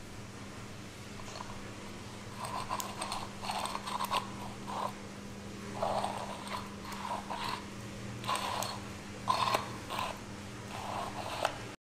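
Irregular scraping and scrubbing, a rough stroke every half second or so, as thick grease is cleaned off a metal gear part of a tank turret drive, over a steady low hum.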